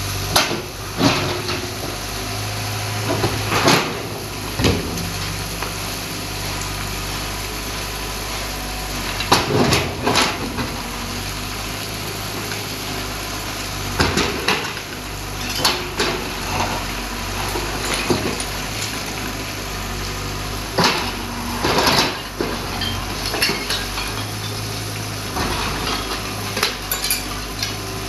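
Excavator bucket breaking up a concrete water tank: irregular clattering crashes of concrete and brick chunks breaking off and tumbling onto rubble, a second or two apart. Under them the excavator's diesel engine runs with a steady drone.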